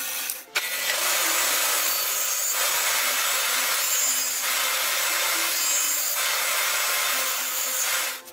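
Woodworking power machine cutting a wooden block for a cart-wheel rim section: a loud, steady cutting noise whose tone shifts every couple of seconds. It drops out briefly about half a second in.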